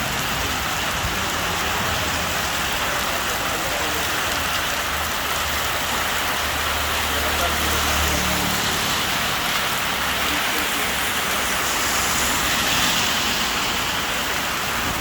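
Heavy rain falling steadily, a dense even hiss of drops on surfaces. A low hum comes up briefly about six to eight seconds in.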